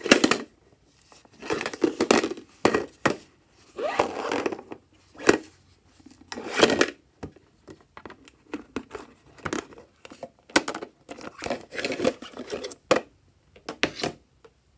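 Plastic packaging crinkling and rustling in repeated short bursts as small plastic items are handled and opened, with sharp plastic clicks in between.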